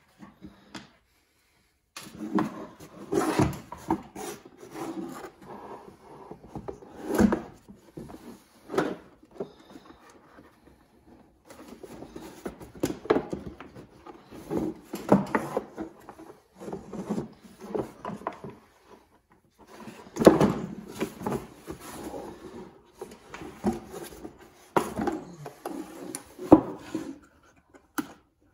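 Irregular knocks, clunks and scraping of hard plastic parts being handled and pulled apart as an old shop vac is taken apart to reach its broken power switch. Louder knocks come about three seconds in, about seven seconds in and about twenty seconds in.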